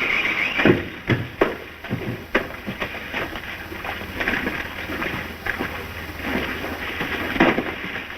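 An irregular run of knocks and thumps over a steady rumbling noise.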